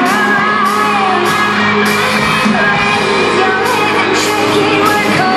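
Live pop music from a band played through a stadium's hanging loudspeakers, with a sung vocal over a steady beat.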